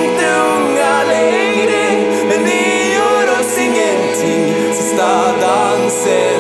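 A song with a sung vocal line over held chords and a few sharp percussion hits.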